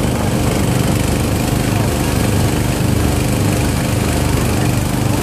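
A small boat's engine running steadily at constant speed, loud and close.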